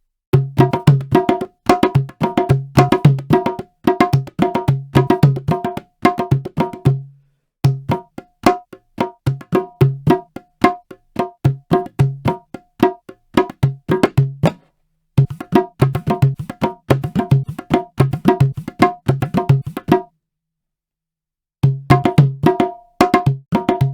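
Sampled Indian hand-drum patterns from Native Instruments' Discovery Series India library: quick runs of pitched, woody strokes played in phrases, with three brief breaks between them.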